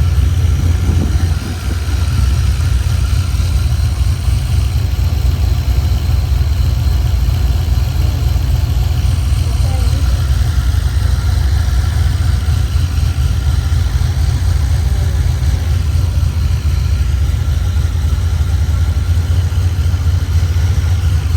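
Turbocharged LS V8 in a VF Commodore idling steadily, low-pitched and loud, with no revving.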